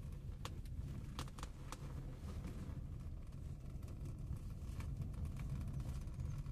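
Steady low rumble with a few faint clicks, mostly in the first two seconds.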